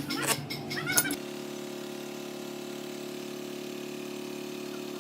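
A small engine running steadily at idle, starting abruptly about a second in after some irregular clicking and chirping.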